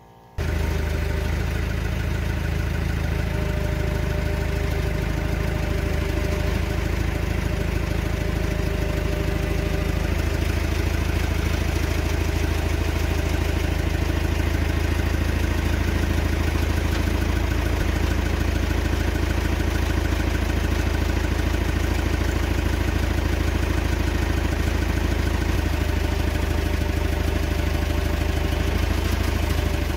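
Forklift engine idling steadily: a low, even drone.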